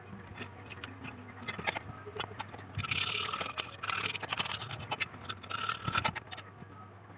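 Scraping and scratching during hands-on work on the amplifier's parts, with many small clicks. The scraping is loudest in two stretches, about three seconds in and again about six seconds in.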